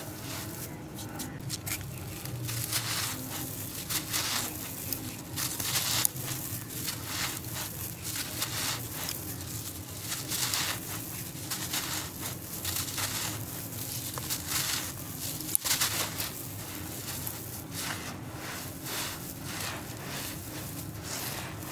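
Hands scooping and crumbling dry, gritty soil mixed with fine gravel: a continual grainy hiss and crunch as the grains pour and trickle through the fingers, with two sharp clicks along the way.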